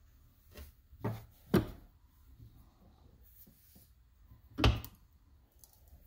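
A few sharp knocks as a power-steering hose fitting, clamped in an unbolted bench vise, is worked with a large adjustable wrench: one about a second in, a louder one half a second later, and another near five seconds.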